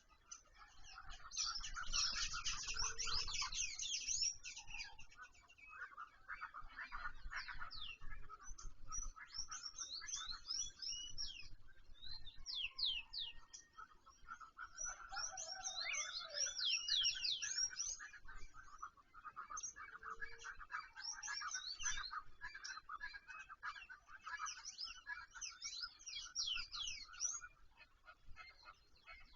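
Several wild birds singing and chirping at once: a dense chorus of quick, high chirps and trills that comes in overlapping bursts, swelling and fading.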